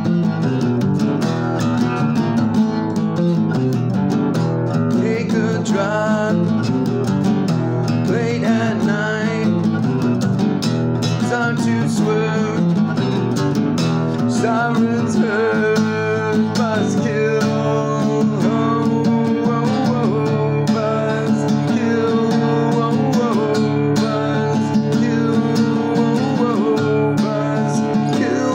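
Music led by strummed acoustic guitar, in a country style.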